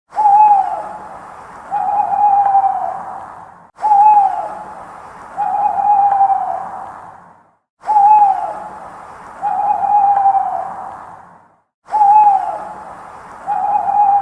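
Owl hooting in a repeating pattern: a short hoot that drops in pitch, then a longer, steadier hoot that sags at its end, with an echoey tail. The pair comes round about every four seconds, four times here.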